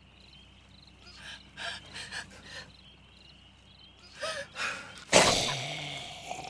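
Tense breaths and gasps, then just after five seconds a sudden loud hit that rings on as it fades: a blow landing on a man's face, which comes away bloodied. Faint insect chirping runs underneath.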